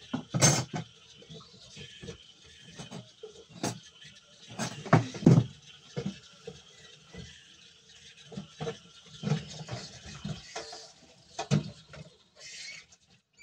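Irregular light knocks and clicks from handling close to the microphone, some in quick clusters, over a faint steady hiss.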